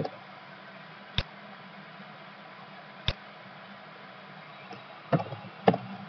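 Computer mouse and keyboard clicks while a file name is typed: two single sharp clicks about two seconds apart, then a quick run of key taps near the end, over a faint steady hum.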